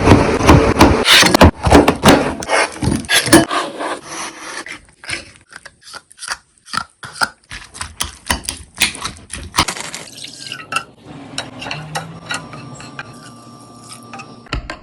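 Close-miked kitchen food-preparation sounds: utensils rubbing, scraping and tapping against dishes. A dense run of clicks and scrapes over the first few seconds thins out into scattered taps, growing quieter near the end.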